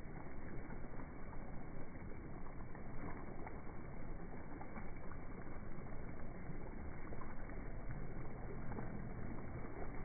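Small waves lapping and splashing against rocks at the water's edge, over a low rumble.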